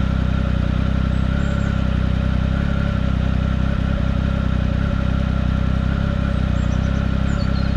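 Triumph Speed Triple 1050 RS's three-cylinder engine idling steadily while the bike stands still.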